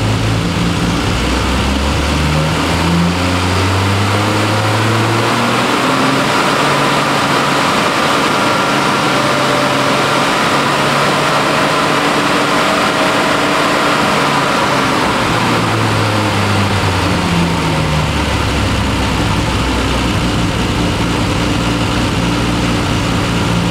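Triumph TR6's straight-six engine revved up from a fast idle over about five seconds, held at high revs for about ten, then let back down to idle. The rev checks that the ignition timing advances under throttle and returns when it is released.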